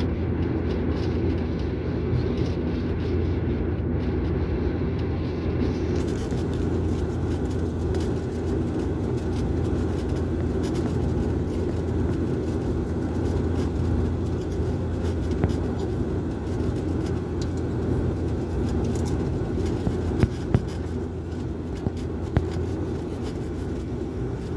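Steady in-flight cabin noise of a passenger airliner on its landing approach: a low, even rumble of engines and airflow with a steady hum, and a few faint clicks in the second half.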